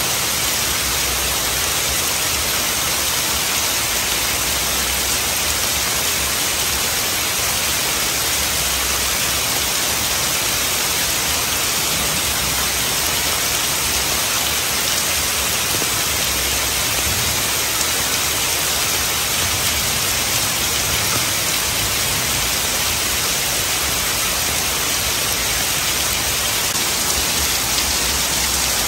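Heavy rain falling steadily on trees and leafy undergrowth, an even unbroken hiss with no thunder.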